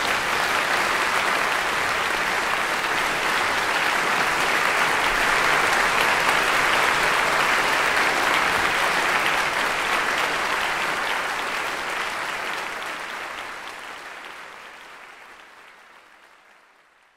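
Concert audience applauding, an even, dense clapping that fades out over the last five seconds or so.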